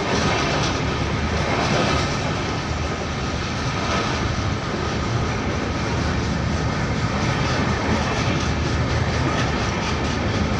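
A train crossing the old iron railway bridge: a steady, loud rumble with the clatter of wheels on the rails and steelwork.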